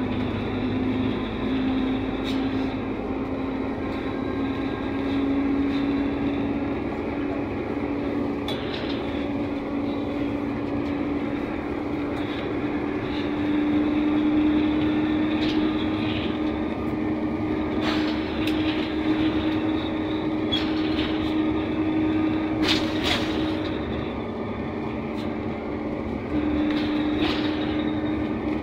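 Interior of a NefAZ 5299 city bus under way: a steady running drone with a whine that creeps slowly upward in pitch, drops off briefly near the end and comes back. Occasional sharp clicks and rattles sound over it.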